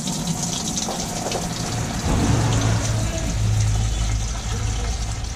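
Oil draining from the underside of an Ashok Leyland bus into a plastic drum: a steady pouring hiss that grows louder about two seconds in, over a low steady hum.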